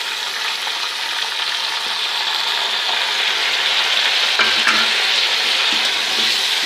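Bones, ginger-garlic paste and freshly added yogurt sizzling in hot ghee while being stirred in the pot: a steady frying hiss that grows a little louder after about two seconds, with faint clicks of the spoon.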